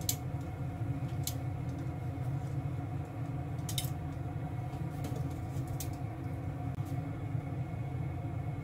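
Metal tongs clicking a few times against the pan and bowl while boiled daikon pieces are lifted out of the water, over a steady low hum in the background.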